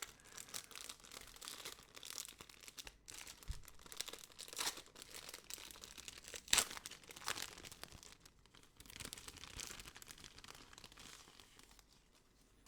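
Packaging being handled and unwrapped: irregular crinkling and rustling of paper and plastic with sharp crackles, the loudest about halfway through, dying down near the end.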